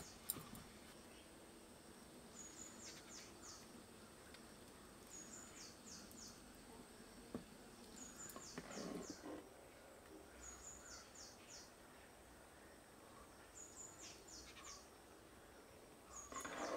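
A faint high-pitched chirping call, a short note followed by three or four quick strokes, repeats about every two and a half seconds over quiet outdoor ambience. A brief soft clatter comes about eight seconds in.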